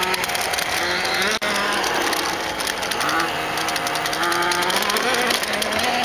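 Force-feedback joystick's small motors and gears whining and rattling as they push the stick around, the pitch rising and falling every half second to a second. The motors are driven by the acceleration forces of a Kyosho DST RC car, read by a Wii controller on board.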